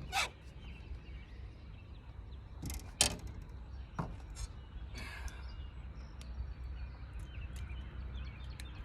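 Lakeside outdoor ambience: a steady low wind rumble with faint bird chirps, broken by several sharp clicks or knocks, the loudest about three seconds in.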